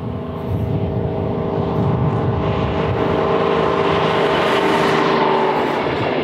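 Victorian Railways Diesel Electric Rail Motor 58RM passing close by: its GM 6-71 diesel engine running under power together with the rumble of its wheels on the rails. It grows louder as it approaches, and its engine note drops as it goes by.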